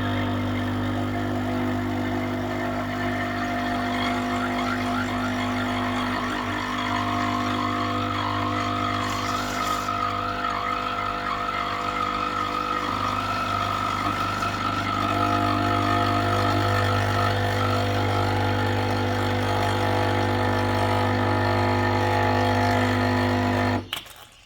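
Small home espresso machine running, its pump humming steadily as it brews, then cutting off abruptly near the end.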